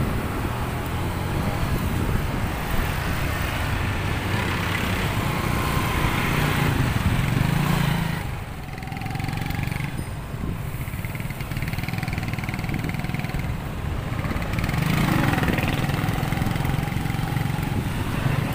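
Motorcycle engines running in street traffic close by: a steady low drone that drops away briefly about halfway through.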